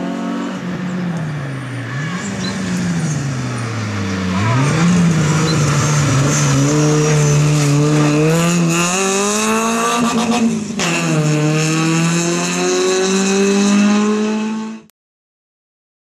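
Peugeot 106 rally car's engine driven hard, its pitch climbing and dipping with throttle, then climbing steadily. A gear change about eleven seconds in drops the pitch sharply before it climbs again. The sound cuts off abruptly near the end.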